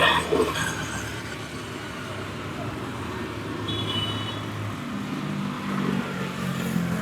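Road traffic passing: vehicle engines running and a steady street hum, swelling as a vehicle draws closer near the end, with a short high-pitched tone about four seconds in.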